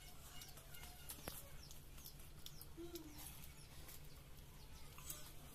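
Faint outdoor quiet with a few thin bird chirps and scattered light clicks.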